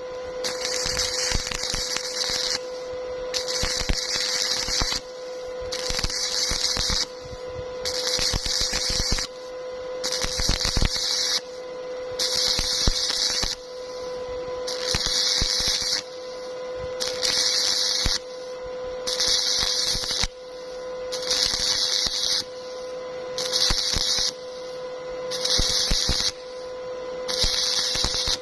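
Electric arc welding crackling and hissing in a run of short stretches, each about one to two seconds long and broken off abruptly, over a steady hum.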